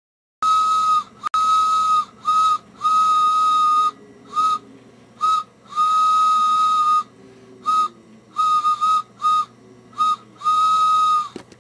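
A whistle sounding one steady note in about a dozen long and short blasts with sharp starts and stops.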